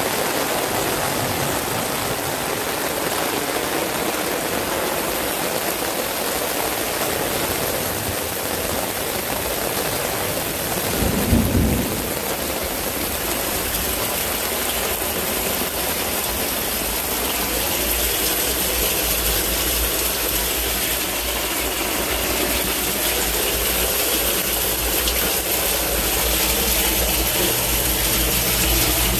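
Torrential rain pouring down steadily, with water running. About eleven seconds in comes a brief, loud low thump, and a low steady rumble builds underneath in the second half.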